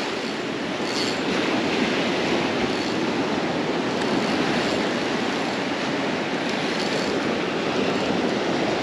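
Gulf surf breaking and washing up the sand, a steady rushing noise.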